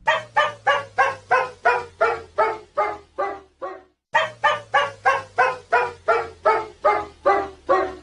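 Dog barking over and over in an even rhythm, about three barks a second, with a brief break a little before the midpoint before the barking starts again. A bark effect from a cartoon sound-effects library.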